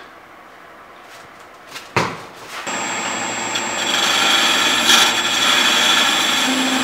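A knock about two seconds in, then a wood lathe running with a steady high whine while a hand-held drill bit in a handle bores into the spinning end grain of a wooden blank, a rough scraping noise as the shavings come off.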